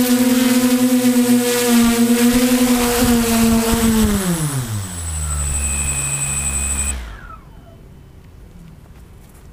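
Electronic background music on a held buzzing note that slides down in pitch about four seconds in, like a slowing tape, then cuts off abruptly at about seven seconds, leaving faint outdoor background.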